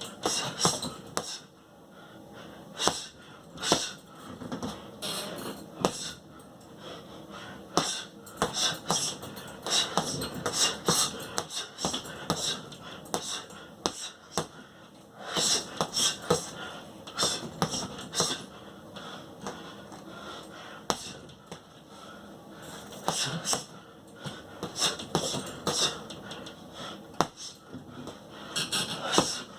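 A boxer throwing punches in quick flurries, with a sharp hissing exhale on each punch and short knocks between them. The flurries come in bursts of a few seconds, with brief pauses in between.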